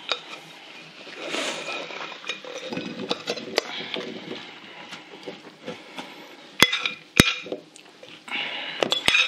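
Chopped apple pieces tumbling from a mixing bowl into glass baking dishes, with the bowl and dishes clinking and knocking; two sharp clinks about two-thirds of the way through and a quick cluster of them near the end.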